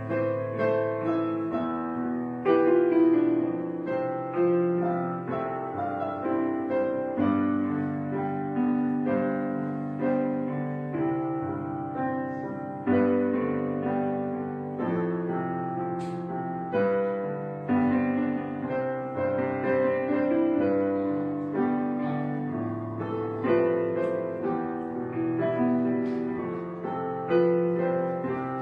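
Background piano music: notes and chords struck one after another, each left to ring and fade.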